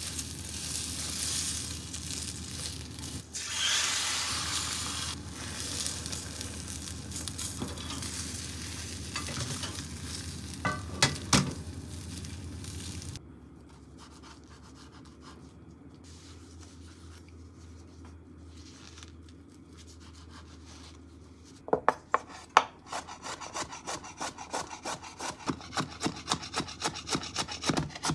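Egg sizzling in a hot square tamagoyaki pan, with a few sharp knocks, then a quieter stretch. Near the end comes a fast, even run of knife strokes on a cutting board, about three a second, as carrot is cut into fine strips.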